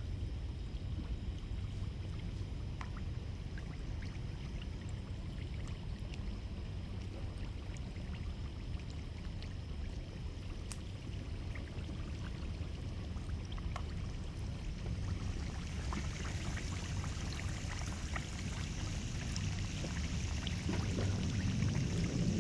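Pieces of egg cake dough deep-frying in hot oil in a pan, sizzling steadily with scattered small crackles over a low rumble. The sizzle grows louder and brighter from about two-thirds of the way through as more pieces go into the oil.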